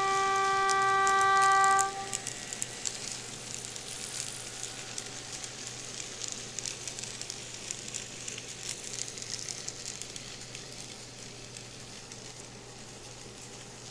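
A diesel locomotive horn sounding a low note for about two seconds, the second half of a two-tone blast. Then the light, crackling clicks of N gauge model wagons rolling over the track, thinning out near the end.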